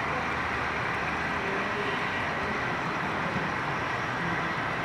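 HO scale model freight train rolling past on the layout: a steady running noise of the cars' wheels on the track.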